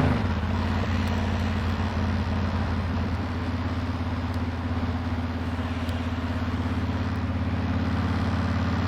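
2007 Honda VTX 1300S V-twin engine running at a steady cruise, with a steady rush of wind noise over it.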